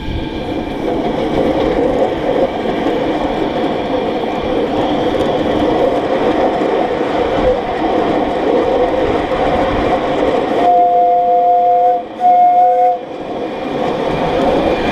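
7¼-inch gauge coal-fired miniature steam locomotive running along the track. About two-thirds of the way through, a steam whistle sounds two notes at once in two blasts, a long one and then a short one.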